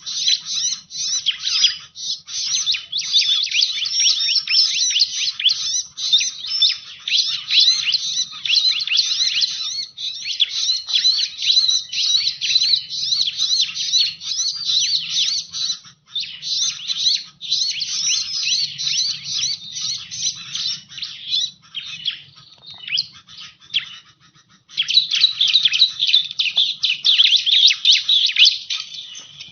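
Bar-winged prinia (ciblek) calling, a lure-call recording: a rapid, unbroken run of high chirps that thins out and almost stops a few seconds before the end, then resumes densely.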